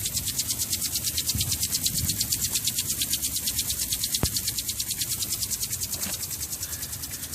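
Rotating hydro-jetting nozzle spinning as it sprays water, a rapid, even pulsing hiss from its sweeping jets, running on about 60 psi of supply pressure rather than the jetting machine.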